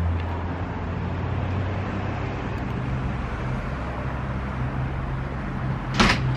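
Steady low hum of vehicle engines and traffic with outdoor road noise, and a brief loud noise about six seconds in.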